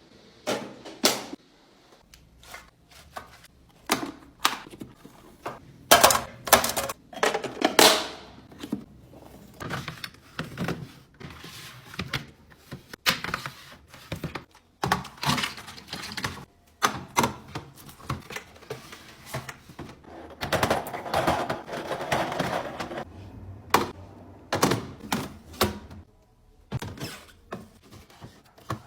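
Plastic fridge organizer bins and containers being handled and set into place: an irregular string of clicks, knocks and clatters, with a longer stretch of scraping and rustling about two-thirds of the way through.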